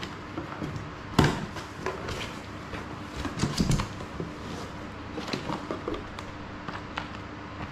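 Cardboard shipping box being opened by hand: the flaps scrape and knock, with a sharp knock about a second in. Then crinkling of plastic wrap and a paper flyer being slid out of the box.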